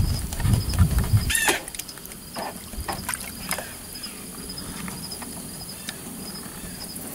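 Water sloshing and splashing in a stock tank as a dog wades and paws at the water, in scattered short strokes. A low rumble runs through the first second or so, and a faint steady insect trill sits underneath throughout.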